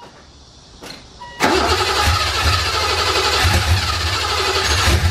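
BMW M30B35 straight-six on individual throttle bodies, run with no exhaust, being cranked in a first start attempt. After a short pause and a brief noise about a second in, it cranks loudly with a throbbing beat for about three and a half seconds, then cuts off.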